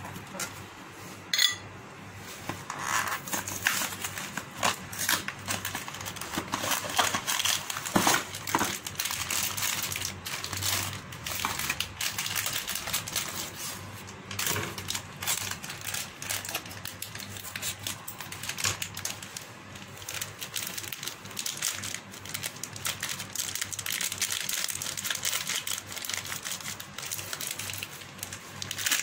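Foil spice packet crinkling and rustling as it is handled and snipped open with scissors, with many small scattered clicks and taps.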